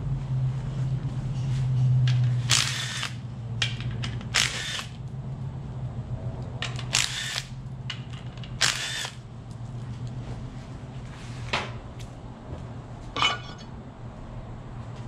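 Transmission parts being handled on a steel workbench: about six short, sharp noises a second or two apart, over a steady low hum.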